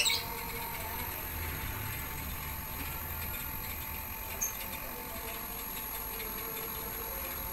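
Daikin inverter air conditioner outdoor unit running on test, its compressor humming steadily. The electronic expansion valve has been replaced with a capillary tube, and the unit is cooling again.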